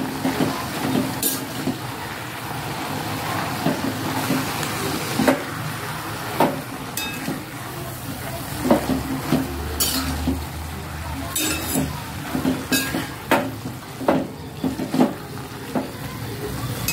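Fresh fenugreek leaves sizzling in hot oil in a stainless-steel pot while a steel spatula stirs and tosses them. The spatula knocks and scrapes against the pot's sides many times over the steady sizzle.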